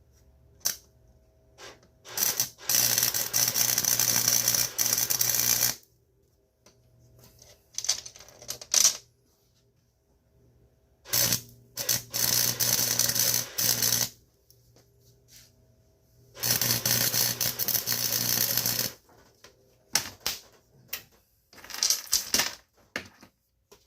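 Electric welder crackling in three runs of about two to three seconds each, welding an inline swivel onto steel trap chain, with short sharp clicks between the runs.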